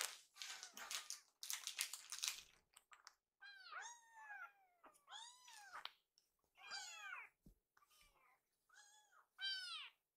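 Hungry kittens meowing over and over, short high-pitched meows that rise and fall in pitch, begging to be fed. Scratchy noise fills the first two seconds before the meows.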